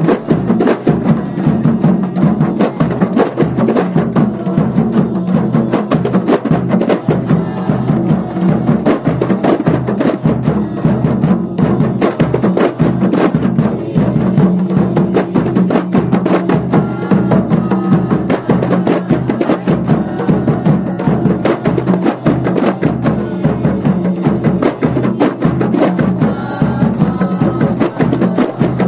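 A kompang troupe's Malay hand frame drums beaten together in a fast, steady interlocking rhythm, backed by a large bass drum, with a voice chanting over the drumming.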